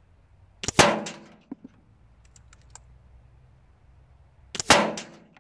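Two shots from an Air Arms S510 SL Carbine .22 PCP air rifle, about four seconds apart. Each is a sharp crack with a short ringing tail. A few faint clicks follow the first shot.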